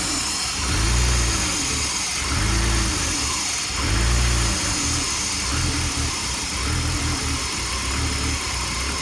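2003 BMW 325i's inline-six engine idling roughly, its speed rising and falling about every one and a half seconds, most strongly in the first half. The owner cannot trace the rough idle and suspects some kind of air leak.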